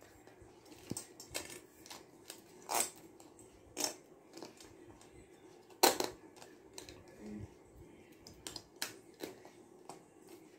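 Scattered clicks and knocks of a stainless steel mop rod and its black plastic holder with steel plate being handled and pressed together while a mop refill is fitted; the sharpest knock comes about six seconds in.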